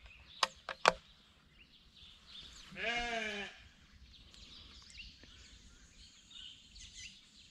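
Three sharp clicks in the first second, then a sheep bleats once, about three seconds in.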